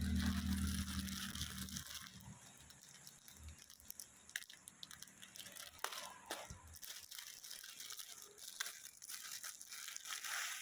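Packaging being handled and opened: rustling, crinkling and tearing with scattered small clicks. A low hum runs under the first two seconds.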